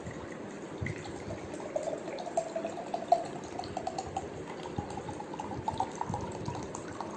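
Water running into a jar to fill it, a steady splashing pour whose pitch slowly rises as the jar fills.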